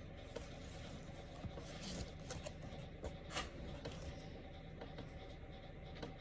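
Faint rustling of paperback book pages and a fingertip brushing across the paper, in scattered soft scrapes; the sharpest rustle comes about three and a half seconds in. A steady low room hum runs underneath.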